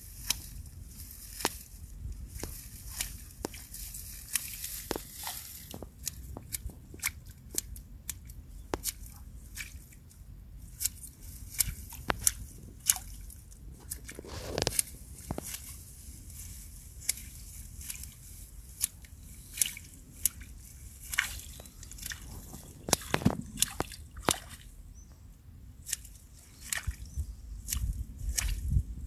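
Scissors snipping through the stems of a flowering rush (Butomus umbellatus) at their base, cutting the plant back to just above the rhizome: a run of irregular sharp clicks and crunches. Water drips and sloshes around the plant.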